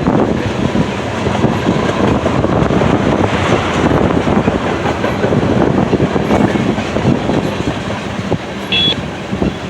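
Freight cars of a manifest train rolling past close by: a steady rumble and clatter of steel wheels over the rail joints, with a brief high wheel squeal near the end.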